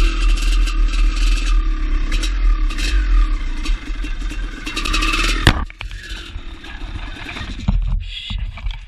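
2004 Maico 500 two-stroke single running on a tight trail, with brush scraping along the bike. About halfway through comes a sharp knock, then the engine cuts out and only clattering and rustling are left.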